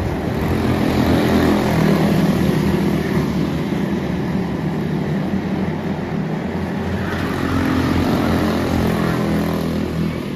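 Several quarter midget race cars' single-cylinder Briggs & Stratton Animal engines running together at racing speed. The sound swells as the pack passes, about two seconds in and again around eight seconds.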